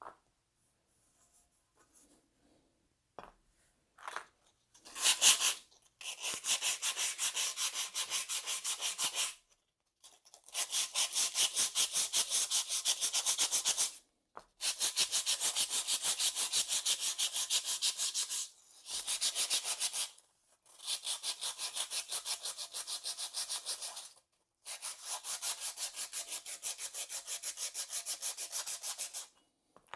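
Hand sanding on a rusty snowmobile exhaust muffler: quick, even back-and-forth strokes, about four or five a second, scraping rust from the metal. The strokes come in runs of a few seconds with short pauses between, after a few scattered scrapes in the first few seconds.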